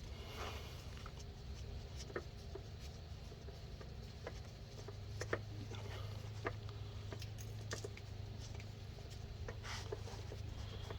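Faint scattered ticks and taps as an oil filter is slowly unscrewed by hand and oil drips from it. A low steady hum comes in about halfway through.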